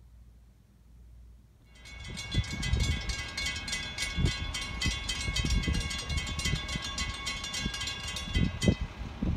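Railroad grade-crossing warning bell ringing rapidly. It starts about two seconds in, after near silence, and stops shortly before the end, with irregular low thumps underneath.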